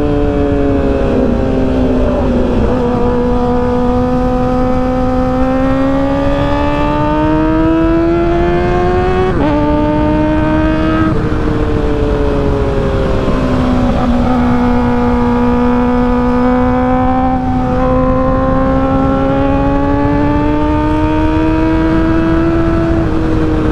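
Kawasaki ZX-4RR's 399 cc inline-four engine running at high revs under way, its pitch climbing and sagging with the throttle and stepping sharply at gear changes several times. A steady rush of wind and road noise runs underneath.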